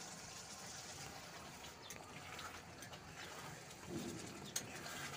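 Fish in mustard gravy simmering faintly in an aluminium kadai while a steel spatula stirs it, giving a few light clicks against the pan. There is a brief low sound about four seconds in.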